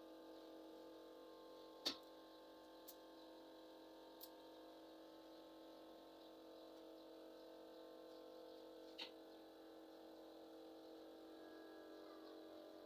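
Faint steady machine hum with a few sharp clicks, the loudest about two seconds in.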